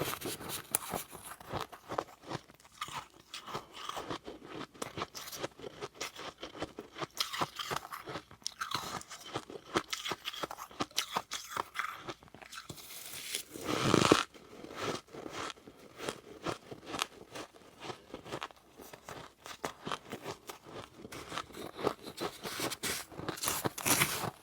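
Close-miked crunching and chewing of powdery freezer frost, a dense run of crisp crackles as the ice is bitten and ground between the teeth. One louder, fuller crunch comes about halfway through.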